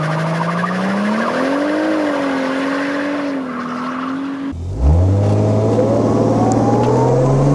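Toyota Supra engine in a VAZ-2104 wagon revving on a launch, the rear tyres spinning and smoking, its note rising and wavering. About four and a half seconds in the sound cuts to the engine heard from inside the car, starting low and climbing steadily as it accelerates.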